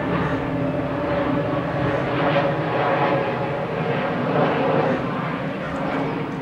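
Airbus A320's twin turbofan jet engines passing low on final approach: steady jet noise with a held hum, a little louder from about two to four and a half seconds in.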